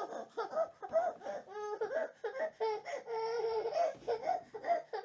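Baby crying in short, choppy sobs, with one longer held cry about halfway through.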